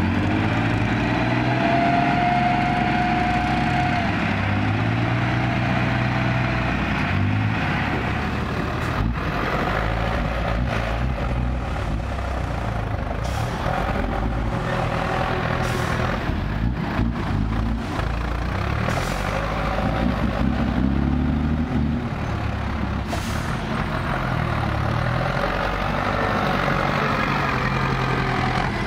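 Hino FM six-wheel dump truck's diesel engine running under load, its speed rising and falling as the truck reverses and the tipper bed is raised to dump soil. A few short sharp noises sound in the middle.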